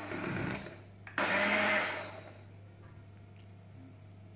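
Electric hand mixer whirring as its beaters whip thick batter in a ceramic bowl, getting louder for about a second, then switched off a little over two seconds in.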